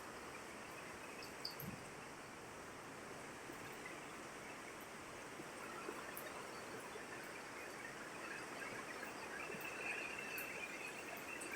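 Faint, steady hiss of rain and wind, growing a little louder in the last few seconds.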